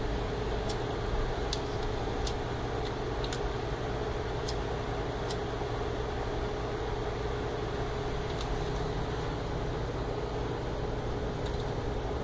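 A handheld lighter being struck again and again, several sharp clicks spread over the first five seconds or so, as it is used to light a scrap of paper. Under it runs a steady low hum and rumble.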